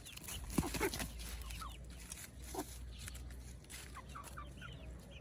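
Local chickens clucking, a string of short separate calls, loudest about a second in.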